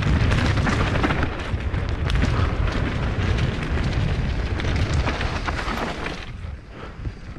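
Mountain bike riding down a wet dirt trail: tyres rumbling and the bike rattling and clicking over the rough ground, under heavy wind buffeting on the camera microphone. The noise drops off about six seconds in.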